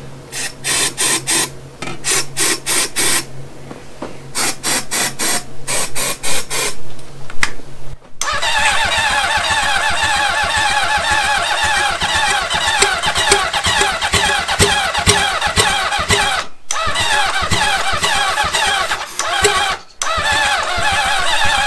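Honda CB750 air-cooled inline-four being cranked on the electric starter, with short hissing squirts of starting fluid into the intakes. About eight seconds in it catches and runs on its own with a steady pulsing exhaust, dropping out briefly twice near the end.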